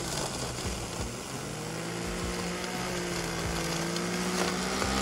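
Electric motor of a 3D-printed RC lawn mower spinning its cutting blades in tall grass: a steady whine that sags in pitch about a second in, as if loaded by the grass, then slowly climbs back up.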